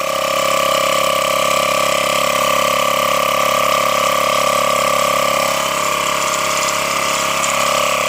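12-volt DC portable air compressor (tire inflator) running with a loud, steady drone.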